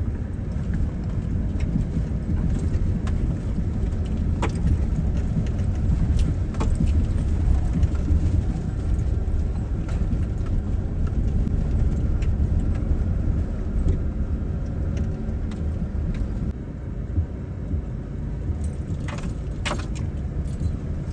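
Inside the cab of a 4x4 pickup crawling over a rocky trail: a steady low rumble from the engine and tyres, with light rattles and clicks scattered through it as the truck jolts over the rocks.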